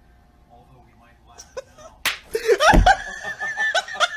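A single sharp slap about halfway through, followed at once by a drawn-out, wavering cry.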